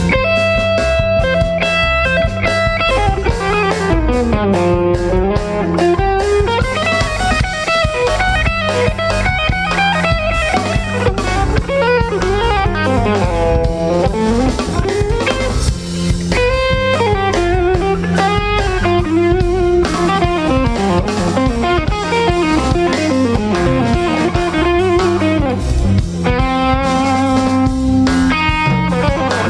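Live jazz from a small band: electric guitar plays a melodic solo line full of sliding, bending notes, over electric bass and drum kit.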